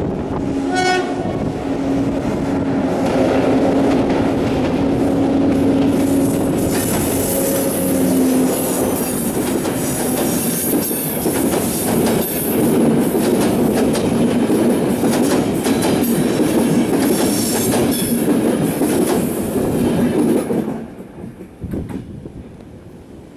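Passenger train passing close by: a horn sounds one long steady blast for the first eight seconds or so, over the rumble and clatter of the wheels on the rails. The wheel noise cuts off sharply near the end as the last coach goes by.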